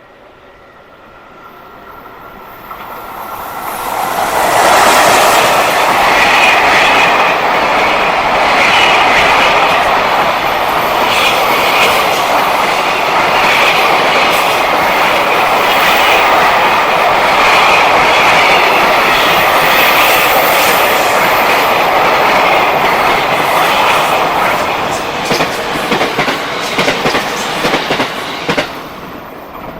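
Freight train passing close by. It swells in over a few seconds into a long, loud, steady rumble and rattle of wagons on the rails. Near the end comes a run of sharp wheel clicks over the rail joints, then it falls away.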